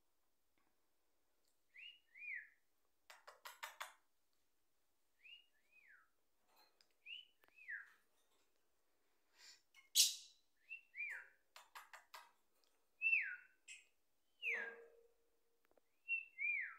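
A series of short whistled notes, each sliding down in pitch, repeated every second or so. Two bursts of quick clicks come between them, about three and twelve seconds in.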